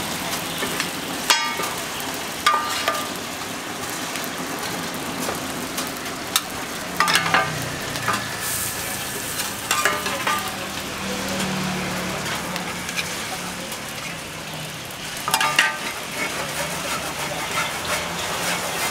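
Pad thai noodles sizzling on a large flat steel pan while metal spatulas scrape and stir. Every few seconds a spatula knocks against the pan with a short metallic clink.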